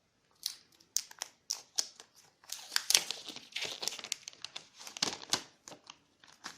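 Protective plastic film being peeled off a new smartphone (HTC One A9), crinkling and crackling in irregular bursts.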